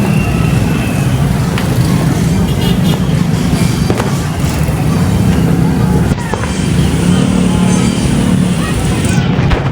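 Dense, loud din of a street traffic jam: vehicle engines running, mixed with voices and music, and a few sharp pops, typical of firecrackers.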